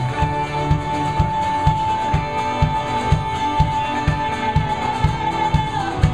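A live band plays acoustic and electric guitars and cello, with a kick drum beating about twice a second. One long high note is held over the top and drops away shortly before the end.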